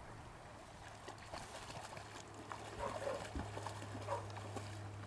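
A Boerboel and a Lab puppy wading through shallow water, with light splashing and a few short dog whines.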